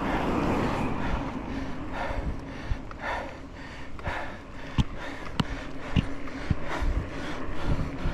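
Wind rumbling on the microphone, then a mountain biker breathing hard, a puff about once a second. A few sharp clicks and rattles from the bike come in the middle.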